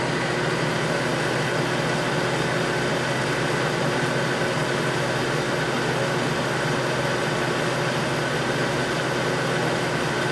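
1979 Clausing Colchester Master 2500 13x25 engine lathe running with its spindle at a steady 320 RPM: an even mechanical hum with a thin steady whine above it.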